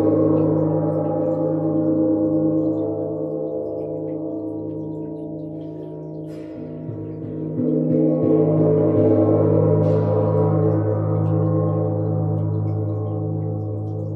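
Large hanging gong ringing with a deep hum and shimmering overtones. It fades away, then swells up again about halfway through, its low hum wavering.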